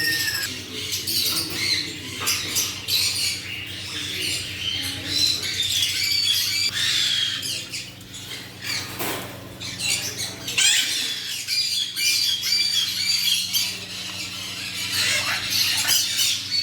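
Many birds squawking and chirping at once, short high calls overlapping throughout, over a steady low hum.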